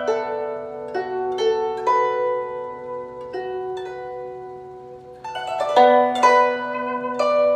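Background music of plucked strings, harp-like notes ringing on over a held low note. It thins out and fades in the middle, then picks up fuller and louder about two-thirds of the way through.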